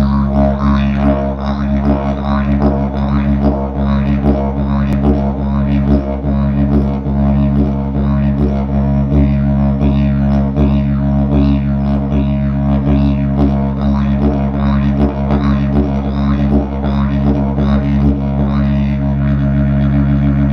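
Didgeridoo played as an unbroken low drone, with a regular rhythmic pulsing in its upper overtones.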